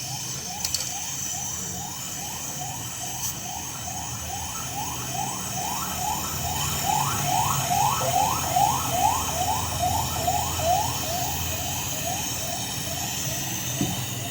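A siren-like alarm repeating short rising whoops, a little over two a second, growing louder toward the middle and then fading, over a low steady hum.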